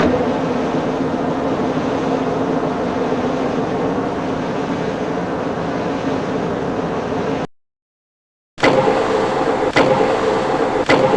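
Manual metal lathe running with a steady hum. The sound cuts out abruptly for about a second a little over halfway in, then resumes with a few sharp clicks.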